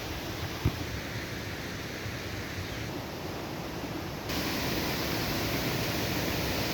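Steady rushing of flowing water from a stream near the waterfalls. There is a single short knock a little under a second in. The rush turns suddenly louder and brighter a little after four seconds in.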